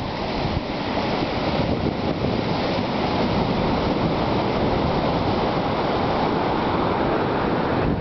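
Ocean surf at the shoreline: waves breaking on rocks and foamy water washing up the sand, a steady rushing wash.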